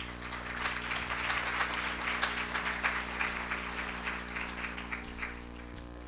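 Audience applauding: a swell of clapping that starts at once and dies away near the end.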